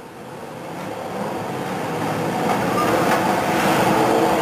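A pack of BriSCA F1 stock cars' V8 engines revving as the race gets under way, growing steadily louder.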